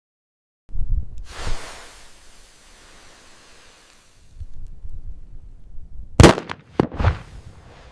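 Dynamite explosion effect: a sudden deep boom just under a second in, trailing off in a long hissing rush, then rumbling with three sharp cracks near the end, the first of them the loudest.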